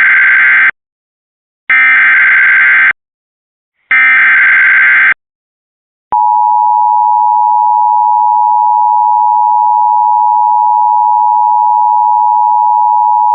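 Emergency Alert System SAME header: three bursts of warbling digital data tones, about a second each, for a new severe thunderstorm warning. About six seconds in comes the loud, steady EAS attention tone.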